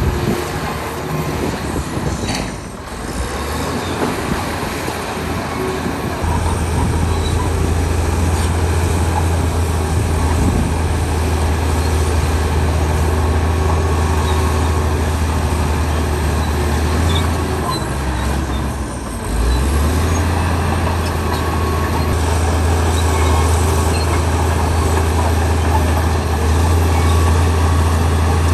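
Heavy diesel engine of earthmoving machinery running steadily under load with a deep, continuous drone. The engine note dips briefly about two and a half seconds in and again around nineteen seconds, then picks back up.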